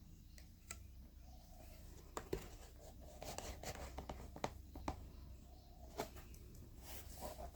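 Faint scratching and scattered small clicks of hands working on a cardboard craft model, over a low steady hum.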